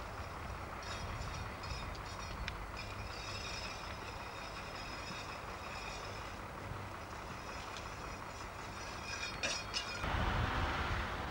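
Steady low engine rumble of a road-rail track work machine on the rails, with faint high metallic whining and a few sharp metal clicks. It turns louder and rougher near the end.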